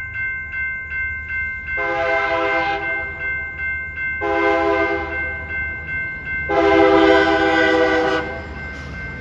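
A Metrolink commuter train's horn sounds three blasts, the last the longest and loudest, as the train approaches a grade crossing. Under the horn, the crossing warning bell rings rapidly and steadily, about two or three strokes a second.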